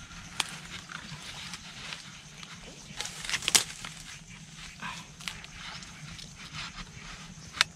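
Gloved hands handling and setting a bamboo crab trap at a burrow: scattered rustling of dry leaves, twigs and soil with a few sharp clicks, the loudest a little over three seconds in, over a faint steady low hum.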